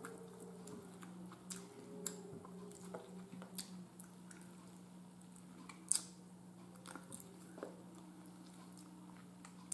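Faint close-up chewing and mouth clicks from a person eating shreds of smoked turkey leg meat pulled off the bone, with a sharper click about six seconds in. A steady low hum runs underneath.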